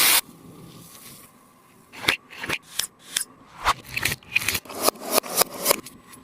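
A loud hiss cuts off at the very start; about two seconds in, a sticky taba squishy's tacky tape surface begins crackling and clicking as it is pressed and pulled apart, several sharp clicks a second.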